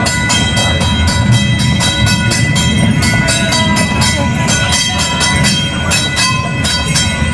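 Horse-drawn streetcar rolling along its rails, its wheels rumbling steadily, with a regular clicking about four times a second from the hooves and wheels.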